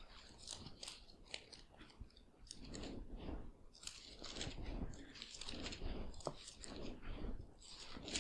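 Pages of a Bible being turned and rustled close to the pulpit microphone while a passage is looked up: an irregular string of short papery crackles and swishes.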